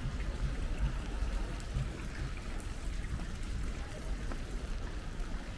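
Steady rain falling on a wet cobblestone street, with scattered drop ticks over a low rumble.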